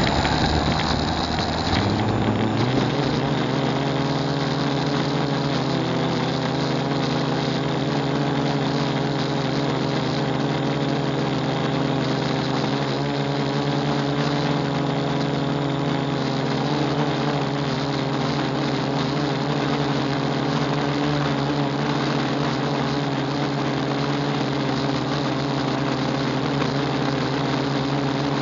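Homemade quadcopter drone's electric motors and propellers spinning up, rising in pitch over the first few seconds, then running at a steady speed with an even hum.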